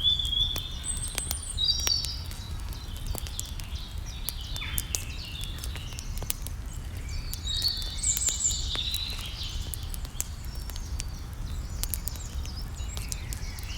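Small birds chirping and twittering in short rising and falling calls, over scattered sharp crackles from the cooking and a steady low rumble.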